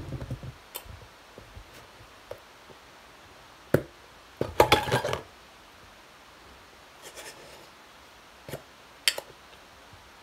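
Small plastic slime containers and their lids handled on a tabletop: scattered clicks and knocks, with the loudest clatter about four and a half seconds in.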